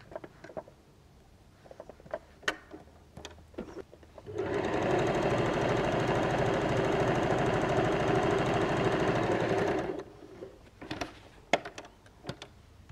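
Janome electric sewing machine stitching a straight seam in one steady run of about five and a half seconds, starting about four seconds in and stopping near ten seconds. A few light clicks of handling come before and after the run.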